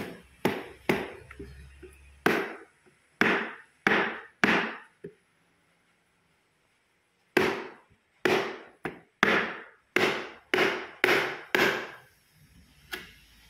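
A hammer striking the wooden slats of a printer's shipping crate to knock it apart, a series of sharp wooden blows. A first run of about six irregular blows, a pause of about two seconds, then a faster run of about nine at roughly two a second and one last blow near the end.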